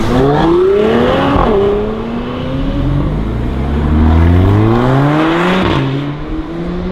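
Mercedes-AMG A45's turbocharged 2.0-litre four-cylinder engine accelerating hard. Its pitch climbs, drops sharply at an upshift about a second and a half in, then climbs again through the next gear to a second upshift near the end.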